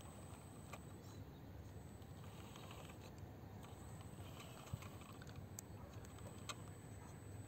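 Faint, scattered clicking and tapping of a small 1/18-scale RC rock crawler's tyres and chassis on rock as it creeps slowly over a ledge, with a few sharper clicks about five to six and a half seconds in.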